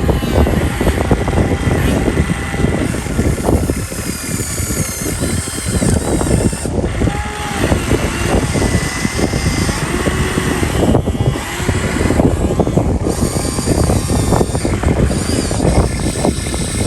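Excavator running and working, with continuous engine noise and dense clattering and rattling.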